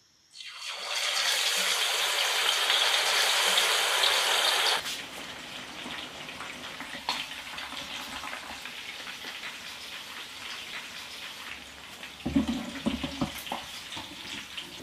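Marinated quail pieces hitting hot oil set off a loud sizzle for about four seconds, which cuts off suddenly. A quieter, steady sizzle with crackles follows as the quail fry. Near the end comes a short run of knocks and clatter as a spoon and fork turn the pieces in the pan.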